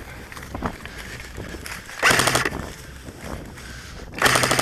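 Airsoft electric gun firing two short full-auto bursts, the second starting near the end, its BBs leaving in a fast, even rattle over the gearbox motor's whir.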